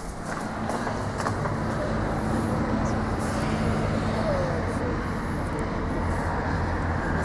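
Steady low mechanical drone, engine-like, over even outdoor background noise, with a few faint clicks.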